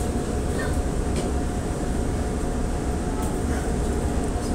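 Steady low rumble and hum of a Downtown Line MRT train standing at a station platform with its doors open, heard from inside the carriage, with a steady mid-pitched tone running through it.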